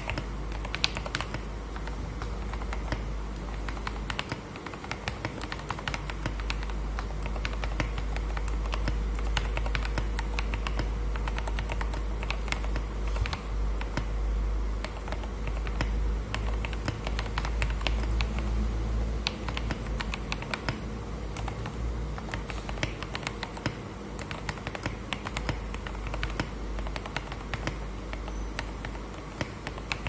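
Continuous fast typing on a Tester68 mechanical keyboard fitted with lubed, retooled Cherry MX Black linear switches and XDA-profile keycaps: a dense, unbroken run of keystroke clacks. A steady low hum sits underneath.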